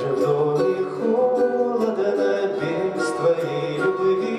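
Male voices singing a Russian folk-style song in harmony, holding long drawn-out notes, with a plucked string instrument behind them.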